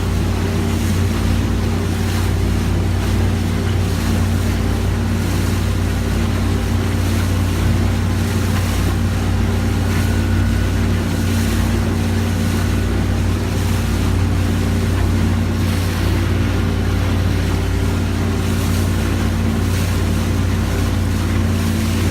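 Motorboat engine running steadily under way, a constant low drone, with water and wind noise over it.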